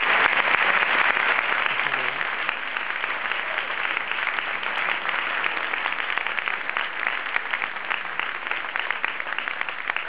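Audience applauding, a dense ovation at first that slowly dies down and thins into separate, scattered claps toward the end.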